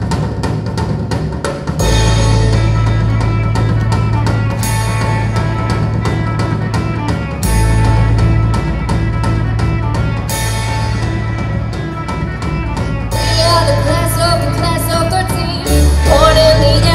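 Rock band playing live: a drum kit keeps a steady beat under electric guitar and bass. A wavering lead voice comes in over the band for the last few seconds.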